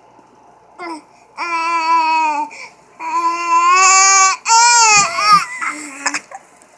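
A baby vocalizing in long drawn-out vowel sounds. There is a short falling call about a second in, then three long held calls, the last one wavering in pitch, and a few short sounds after them.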